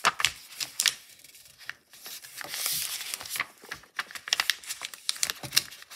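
Sheet of paper being folded back and forth into fan pleats: crisp crinkles and sharp creasing clicks, with a longer rustle of paper about two seconds in.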